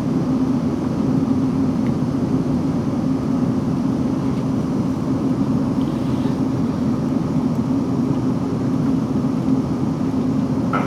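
Steady running noise inside the carriage of a South Western Railway Class 458 electric multiple unit on the move: an even rumble from wheels on rail with a constant low hum.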